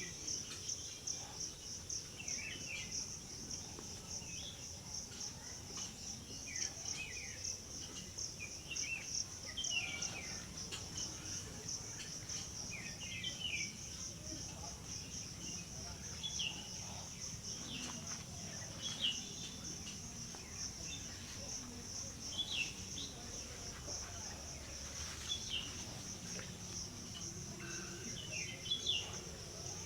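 Insects trilling steadily in a high, fast-pulsing drone, with birds chirping in short calls every second or two over a low background rumble.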